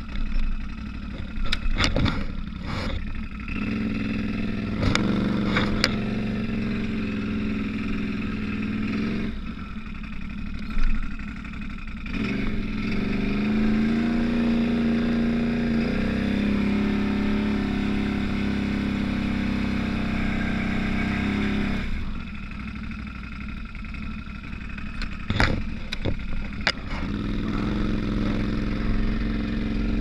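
Can-Am Outlander 850 XMR ATV engine running under way, revving up partway through, holding the higher speed for several seconds, then easing back. A few sharp knocks come through now and then.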